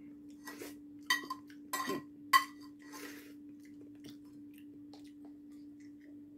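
A spoon clinking against a plate: about four sharp, ringing clinks within the first two and a half seconds, then faint handling. A steady low hum runs underneath.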